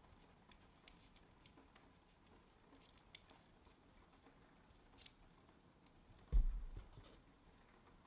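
Light scattered clicks and ticks of small model-engine parts and tools being handled during assembly, with one dull thump about six seconds in.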